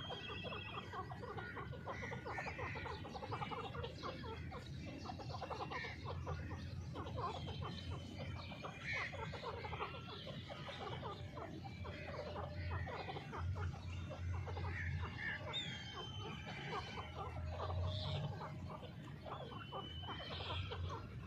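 Grey francolins calling softly: many short chirps, with a trilled whistle that comes back every few seconds.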